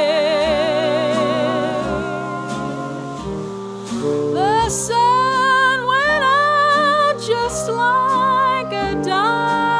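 Jazz orchestra playing swing: a lead line with vibrato is held over sustained ensemble chords, then moves into bending, sliding phrases about four seconds in.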